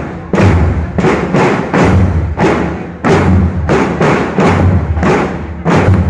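School marching band drum corps playing a march cadence: snare drums beating a steady rhythm several strokes a second, with a heavy bass drum stroke about once a second.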